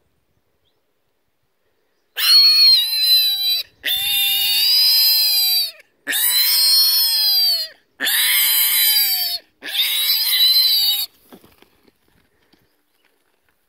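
Wild boar piglet squealing in distress while held up by hand: five long, loud squeals of about one and a half to two seconds each, the first starting about two seconds in, each dropping in pitch at its end.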